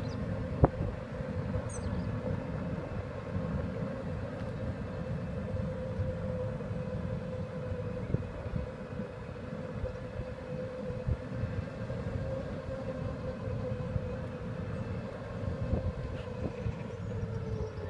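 Buggy driving along a tarmac lane: a steady whine over a low rumble from the wheels, with occasional small knocks and rattles.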